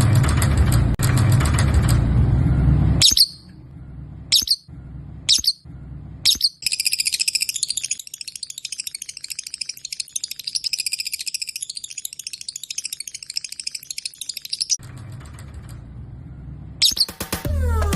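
Lovebirds screaming: four short shrill calls about a second apart, then about eight seconds of continuous rapid, shrill chattering. Loud music plays at the start and comes back near the end.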